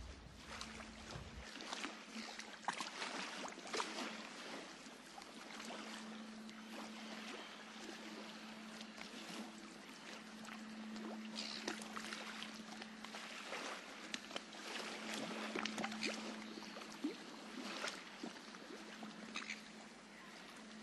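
A steady rushing noise full of scattered crackles and pops, with a faint low hum that comes and goes.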